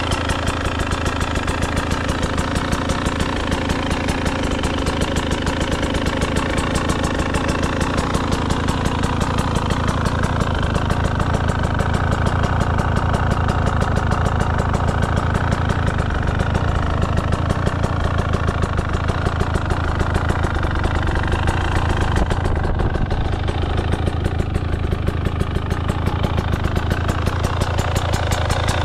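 Husqvarna TE300 Pro two-stroke single-cylinder enduro engine idling steadily with a fast, even firing beat.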